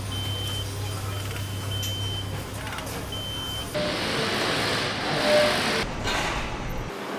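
Factory-floor machine noise: a steady low hum with several short, high electronic beeps on one pitch, then a louder rushing hiss for about two seconds.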